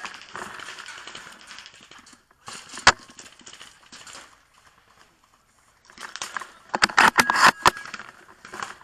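Close handling noise from a bolt-action airsoft sniper rifle and the shooter's kit: rustling and scattered clicks, one sharp click about three seconds in, then a dense run of clicks and rustles around seven seconds.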